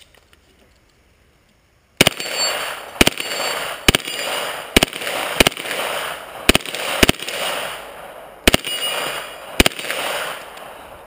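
Full-auto Colt M16 with a 9mm upper firing a long string of rapid bursts, starting about two seconds in and stopping near the end: a dense crackle of fast shots broken by sharp louder cracks. Brief high ringing tones mark hits on steel targets.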